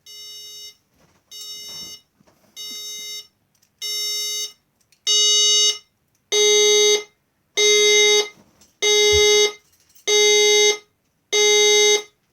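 Fire alarm evacuation tone sounding in a slow pulse, about ten short beeps of one buzzy tone a little over a second apart, growing louder over the first few and then holding at full volume: the trial evacuation has just been started on the fire alarm panel.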